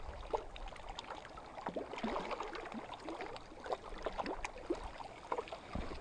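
Lake water lapping and gurgling against the rocks of the shoreline: a run of small, irregular plinks and gurgles.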